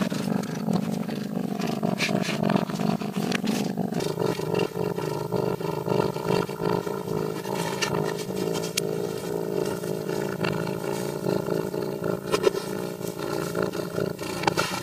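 Domestic cat vocalising: a few short sounds, then from about four seconds in a long, low, steady growling yowl.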